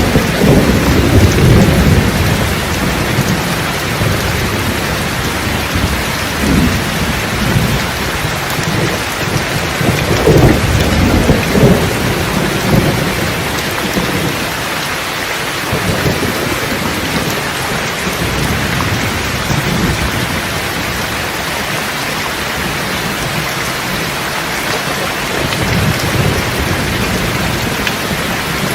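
Steady rain with rolling thunder rumbling underneath, swelling at the start and again about ten seconds in, with a weaker rumble near the end.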